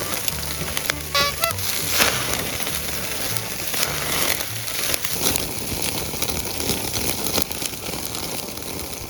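Background music with a repeating bass line over a dense crackling hiss, with a short run of rising tones about a second in.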